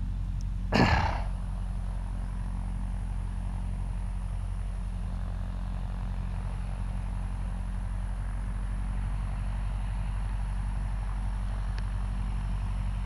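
An engine idling steadily with an even low hum, with one short burst of noise about a second in.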